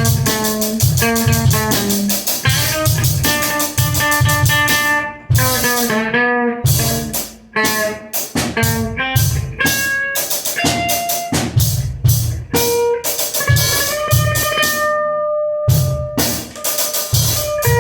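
Guitar and drum kit playing an instrumental rehearsal take, with steady kick and snare under guitar notes. The drums drop out for about two seconds around five seconds in while the guitar rings on, and again for a moment near the end before the beat comes back.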